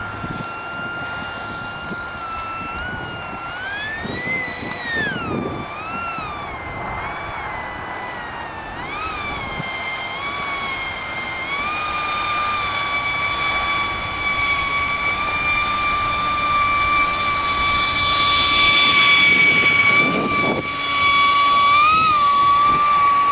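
Electric ducted fan of a radio-controlled Yellow Aircraft Stingray jet whining. Its pitch rises and falls with several throttle blips in the first few seconds, then it holds a steady high whine that grows louder, with an airy hiss building over it.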